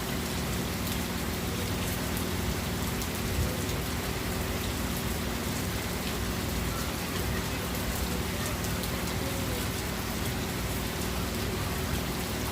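Heavy rain falling steadily, a constant hiss dotted with the ticks of individual drops striking surfaces, over a steady low hum.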